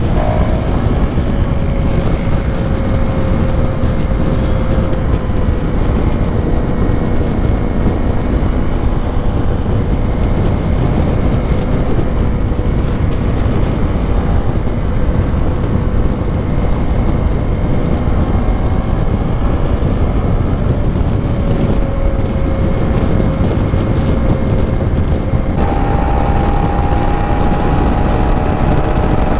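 KTM Duke 390 single-cylinder engine running at a steady cruising speed over a constant rush of noise. Near the end the engine note abruptly jumps higher as the bike runs much faster in top gear.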